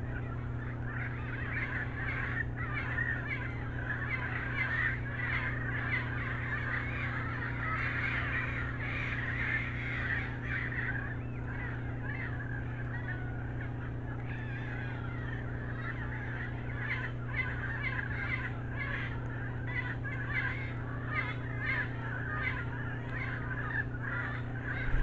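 Night-time rainforest chorus: a dense, steady chatter of many small calling creatures over a steady low hum.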